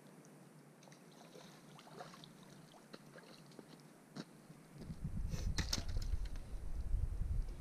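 Faint water splashes and small ticks as a trout is scooped up in a landing net in the shallows. About five seconds in, loud close-up rumbling and rustling begins as the net and the fish are handled right beside the microphone.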